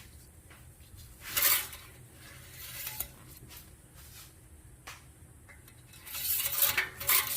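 Engine oil dipstick being drawn out and handled under the hood: a short burst of rattling handling noise about a second and a half in, and a longer cluster of it near the end.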